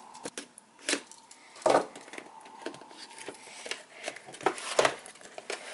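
A cardboard box being unsealed and opened: a pocket knife slitting the seal, then the paperboard flap being pulled open. It makes a string of short, sharp scrapes and taps.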